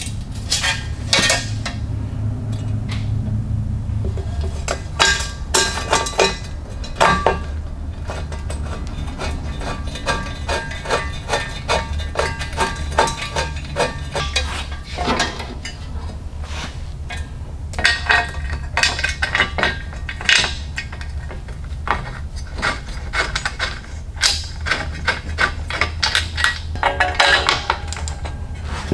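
Hand tools and metal bolts and brackets clinking, tapping and clattering in an irregular run of sharp metallic knocks while bolts are fitted, over a steady low hum.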